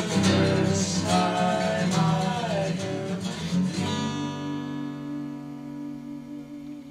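Acoustic guitar strummed, with a voice singing over it, then a final chord left to ring and slowly fade from about four seconds in.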